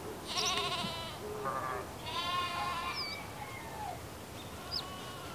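Animal calls, bleating three times in the first three seconds with a wavering pitch, with a few short, high bird-like chirps after.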